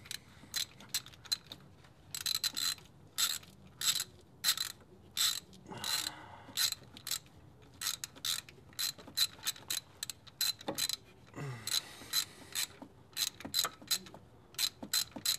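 Socket ratchet clicking in quick, irregular runs as a spark plug is threaded back into the cylinder head and tightened.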